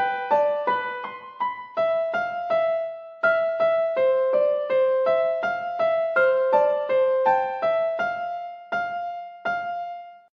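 Background music: a keyboard melody of single notes struck one after another, each dying away, that breaks off briefly at the very end.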